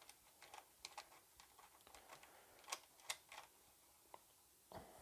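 Faint, scattered small clicks and light metallic taps from a screwdriver, terminal bolt and cable ring lug being handled at a motorcycle battery's negative pole, with a soft thump near the end.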